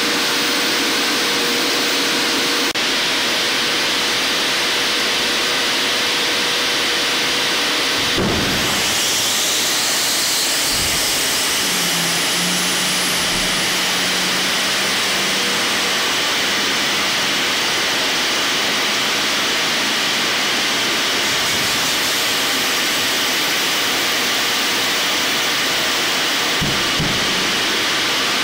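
Boeing 747-400's air-driven hydraulic pumps running hard on ground pneumatic air, a loud steady hiss and whine, while the landing gears retract. A sharp clunk about eight seconds in is followed by a rising whine, with a couple of duller thuds near the end.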